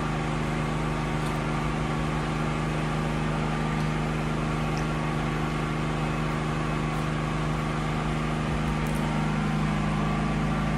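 Generator engine running at a steady speed: a constant, even hum.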